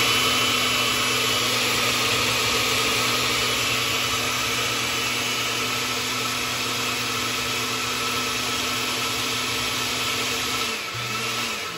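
Oster countertop blender with a glass jar running steadily, blending a thin cucumber-and-pineapple smoothie. It is switched off near the end and the motor winds down.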